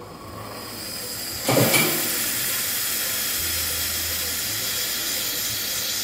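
Hot water and steam hissing through the brew group of an Odyssey Argos lever espresso machine as the lever is pulled during a test shot. The hiss builds, a sudden louder gush comes about a second and a half in, and then it settles into a steady hiss.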